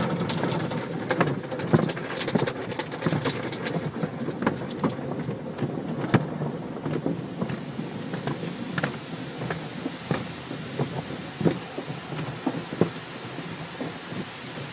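Car wash water spray drumming and pattering on a car's body, a steady wash of water noise with many irregular sharp taps.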